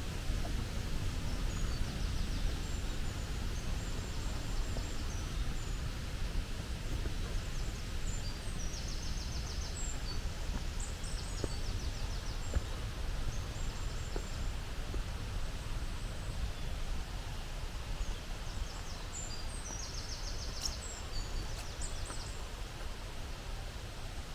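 Small songbirds calling in high-pitched chirps, with two bursts of rapid trilling notes, one about nine seconds in and one about twenty seconds in, over a steady low rumble.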